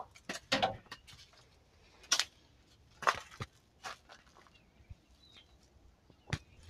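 Footsteps on dry leaf litter and debris, with scattered knocks and rustles from things being brushed past, coming irregularly about once a second.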